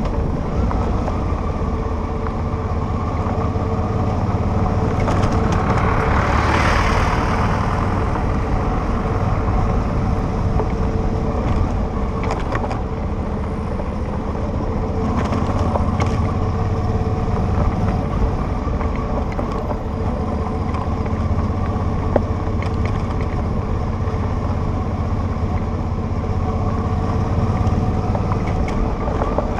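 Motorcycle engine running steadily at riding speed on a rough gravel road, with wind rush and scattered clicks from the road surface. A louder rush of noise swells and fades about six seconds in.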